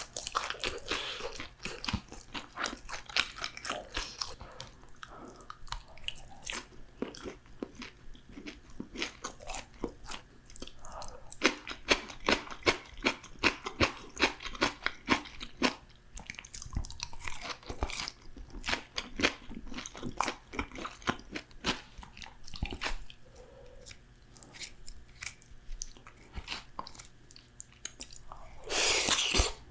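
Close-miked crunching and chewing of crispy fried food, with many sharp, irregular crunches from bites and chews. A loud burst of crunching comes near the end.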